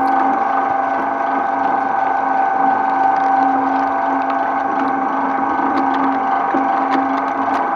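Twin-shaft shredder running empty, its motor and gearbox giving a steady whine with a few faint clicks near the end.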